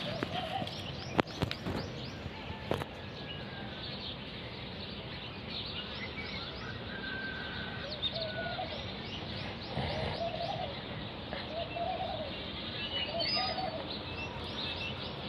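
Birds calling outdoors: a quick run of high chirps repeats steadily, and in the second half low coos, like a dove's, come every couple of seconds. A few sharp clicks sound in the first three seconds.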